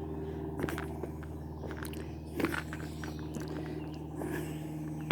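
Footsteps crunching on a dirt trail, a scattering of irregular steps and scuffs, over a steady low hum.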